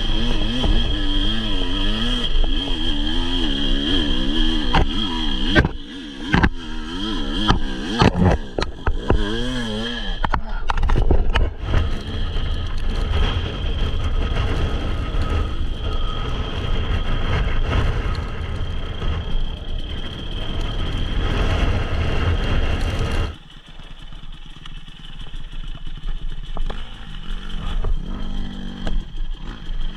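Enduro dirt bike engine running on a rough off-road trail, its pitch rising and falling as the throttle is worked, with the bike clattering over the ground. The sound drops sharply about two-thirds of the way through and runs on quieter.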